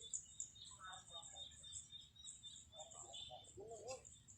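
Faint bird chirping, a quick string of high short chirps with a few lower calls near the end, over an otherwise quiet outdoor background.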